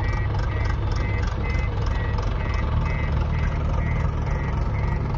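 Heavy diesel engine of a JCB 3DX backhoe loader running steadily, with its reversing alarm beeping about twice a second.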